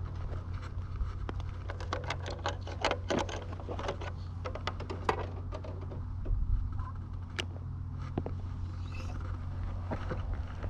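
Small go-kart engine running steadily with a low hum, while a spinning rod and reel are handled close by, giving many sharp clicks and rattles, thickest in the first few seconds.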